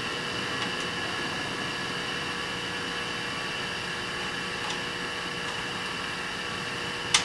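Steady background hiss with a faint, constant hum, and a single sharp click near the end.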